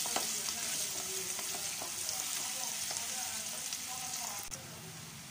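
Chopped onions sizzling in hot oil in a clay pot, stirred with a wooden spoon that gives small scrapes and taps against the pot. The sizzle softens about four and a half seconds in.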